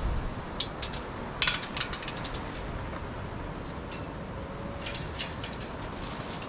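Footsteps of hikers on a rough mountain trail: irregular sharp steps, several close together about one and a half seconds in and again around five seconds, over a steady background hiss.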